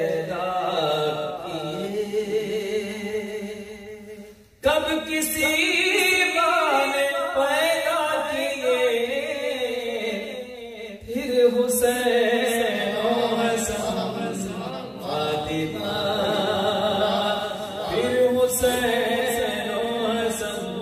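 A man's solo voice chanting a manqabat, a devotional praise poem, in long wavering melodic phrases. It fades to a short pause about four and a half seconds in and comes back at full strength, with another brief dip about eleven seconds in.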